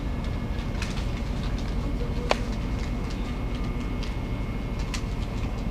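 Steady low rumble of a ferry's engines and hull vibration heard from inside a passenger cabin, with a few sharp clicks or rattles scattered through it, the loudest a little after two seconds in.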